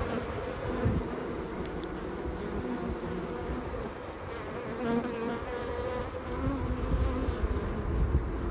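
A mass of honeybees buzzing, a steady hum of a colony nested in a chimney.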